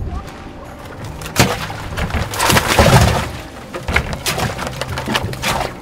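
Orange plastic basket tipped out into a boat's water-filled livewell: sharp clattering knocks, with a louder noisy rush like a splash in the middle.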